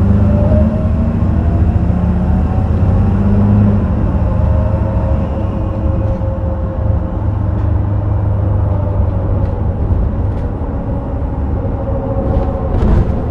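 Heuliez GX327 city bus with a ZF 5HP 504C automatic gearbox under way: a steady low engine drone with a faint whine that climbs slowly as the bus gathers speed. A few sharp clicks near the end.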